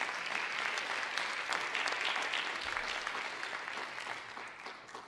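Audience applause, a dense patter of hand claps that fades out near the end.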